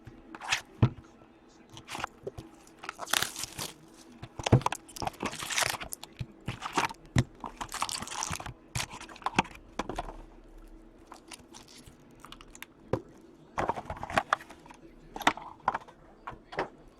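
Crinkling, crackling and tearing of plastic and foil wrapping as a hockey card hobby box and its packs are opened, in irregular bursts with small handling clicks between them.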